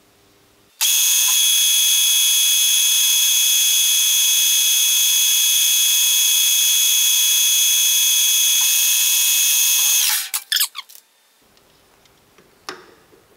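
Colchester Student metal lathe running a turning cut: a loud, steady, high-pitched whine that starts abruptly about a second in and stops about ten seconds in, followed by a few light clicks and knocks.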